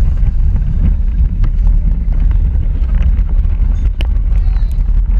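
Steady low rumble of wind buffeting the microphone and road vibration from a moving electric Power Racing Series car, with a few light clicks and rattles.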